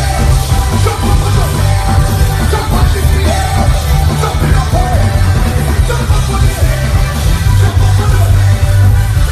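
Soca played loud by a live band, a singer's voice riding over a strong bass.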